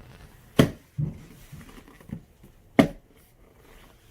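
Two sharp knocks about two seconds apart, with a softer low thump and a small tap between them, in a small room.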